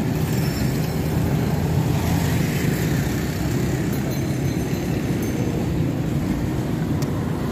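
Steady street noise with a low rumble of passing traffic.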